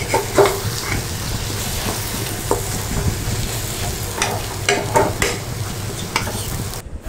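Steel spatula scraping and knocking against a karahi while stirring green mango pieces frying in oil, over a steady sizzle. The scrapes and knocks come at scattered moments, most of them about four to five seconds in.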